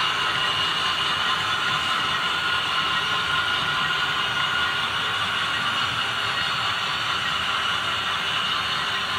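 HO scale model freight cars rolling past on the track, their wheels on the rails making a steady hiss with a faint whine.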